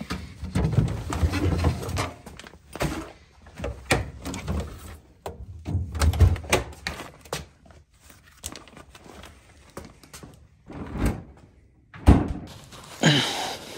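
Handling noise in a small room: a run of irregular knocks, thuds and door- or drawer-like clunks, with a sharp knock about twelve seconds in followed by a short rustle.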